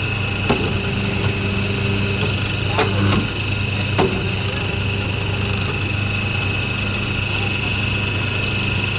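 Double-die paper plate making machine running: a steady motor hum with a high whine above it, and a few short sharp knocks in the first four seconds as the machine works.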